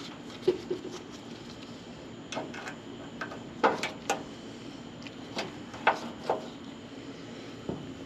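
Hand work on a dryer's door switch and its plastic housing: about a dozen sharp clicks and light taps, scattered irregularly, with a small cluster of them around the middle.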